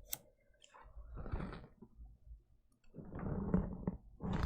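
Faint clicks and rustling scrapes of small plastic parts being handled, as the lock on a Toshiba laptop keyboard's ribbon-cable connector is released: a sharp click right at the start, then two spells of irregular handling noise.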